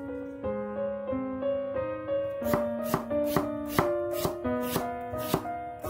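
Background music, a piano-like melody, throughout. From about two and a half seconds in, a kitchen knife slices an onion on a wooden cutting board, with a sharp knock about twice a second as the blade meets the board.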